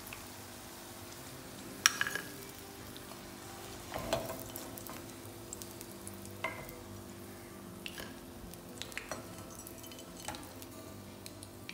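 Oil sizzling steadily around moong dal rolls deep-frying in a kadai. A steel slotted spoon clinks sharply about six times as the rolls are scooped out, loudest about two seconds in.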